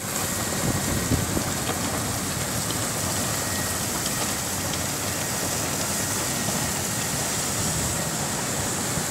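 Coal pouring from a conveyor-fed shiploader's chute into a ship's hold: a steady, even rushing noise.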